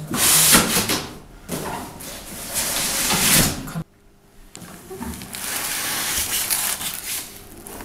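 Cardboard box flaps being pulled open, the card scraping and rustling, then hands handling the foam packing tray and plastic bags inside. The sound breaks off suddenly about four seconds in and comes back quieter.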